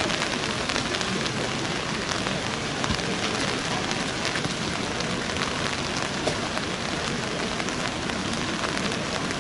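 Steady rain falling, an even hiss with many small drop ticks scattered through it.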